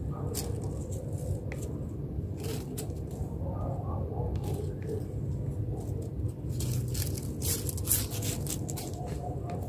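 Two cats scuffling on a tiled floor strewn with dry leaves: scattered scrapes, rustles and crackles, busiest and loudest a couple of seconds before the end. A steady low rumble runs underneath.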